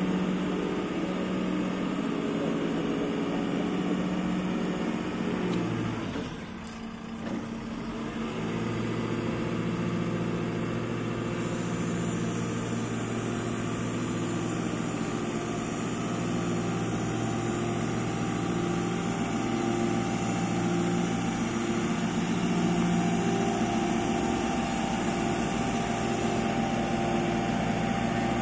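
JCB 535-125 telehandler's diesel engine running while the raised boom is lowered and retracted. The engine note dips briefly about six seconds in, then steadies with a pulsing beat. A high hiss comes in about eleven seconds in and stops shortly before the end.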